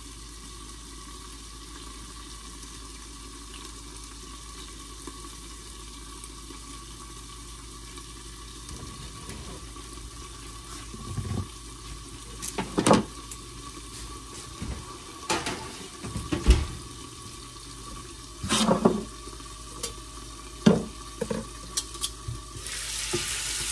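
Green beans steaming and sizzling in a covered cast iron skillet, a steady low hiss. From about halfway there are sharp clinks and knocks of kitchen utensils and dishes, and near the end the sizzle grows suddenly louder as the lid comes off.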